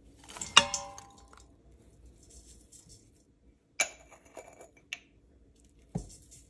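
A bowl clinks against a stainless-steel pressure-cooker insert as chopped Swiss chard stalks are tipped in, the metal ringing briefly. A second, sharper clink comes about four seconds in, then a small click and a dull knock near the end, with faint rustling of food between them.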